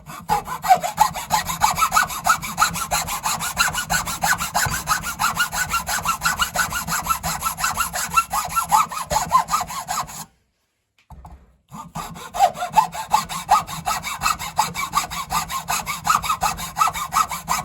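Hand saw cutting a pine wood block in fast back-and-forth strokes, about four a second; the sawing stops about ten seconds in, then starts again after a short pause.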